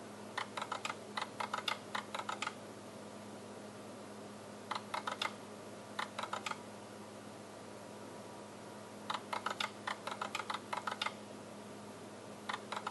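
HP 54540A oscilloscope's internal relays clicking in rapid bursts as its self-test works through the acquisition, trigger and timebase circuits. There are five bursts, two of them longer runs of about two seconds, over a steady hum and hiss.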